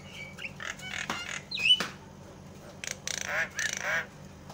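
Javan myna calling: a string of varied short whistles and harsh chattering notes. A sharp rising-then-falling whistle about a third of the way in is the loudest, and two rough, raspy calls follow in the second half.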